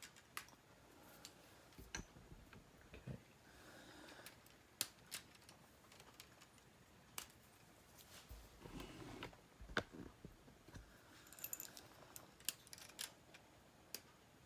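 Faint handling of a K'nex plastic construction model: a dozen or so irregular sharp clicks and snaps as plastic rods are unclipped from their connectors, with soft fumbling between them.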